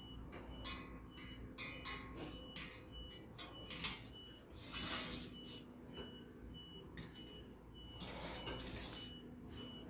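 Perforated-metal mesh tray sliding into the rails of a steel desk document rack: light metal-on-metal clinks, with longer scrapes about halfway and again near the end.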